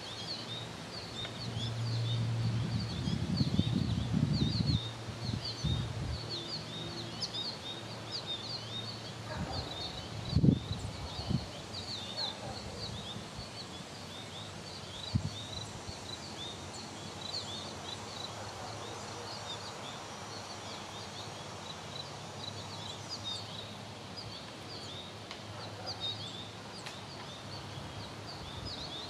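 Garden ambience of small birds chirping rapidly and continuously in high, short notes. A low hum sounds in the first few seconds, and a single thump comes about ten seconds in.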